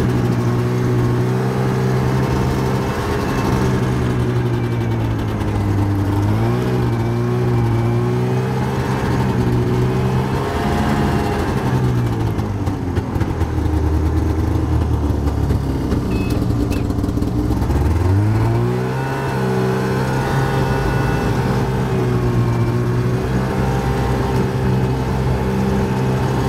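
Yamaha snowmobile engine running under way, its note dipping and recovering several times with speed; it sinks lowest around the middle and climbs back sharply about eighteen seconds in.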